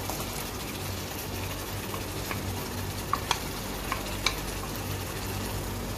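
Potato cubes frying in oil in a pan, a steady sizzle as tomato purée is poured over them. A few light clicks of a spatula scraping the bowl and knocking against the pan come about three to four seconds in.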